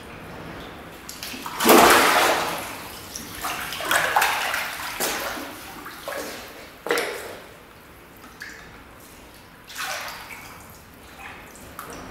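Water splashing in several separate bursts, each starting suddenly and dying away within a second or so, the loudest about two seconds in.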